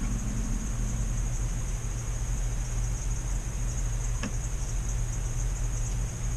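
Steady low electrical-style hum with hiss and a faint high whine, with one faint tick about four seconds in.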